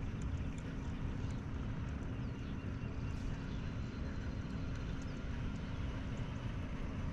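Electric trolling motor running steadily and pushing a kayak, a continuous low hum and rumble. Faint bird chirps sound over it.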